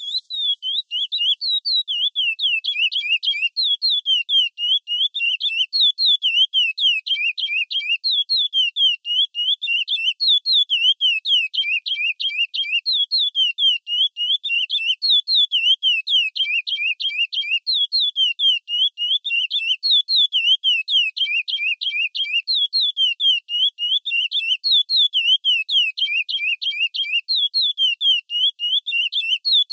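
Chestnut-bellied seed finch (curió) singing the Praia Clássico song, a clear studio recording. It begins abruptly and runs as a continuous series of phrases of fast, rapidly repeated whistled notes sliding up and down.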